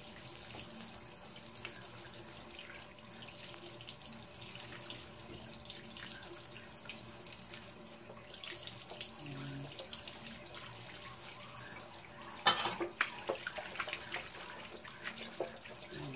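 Kitchen tap running into a stainless-steel sink while chicken intestines are rinsed clean by hand under the stream. About twelve seconds in there is one sharp clatter, then a few lighter knocks.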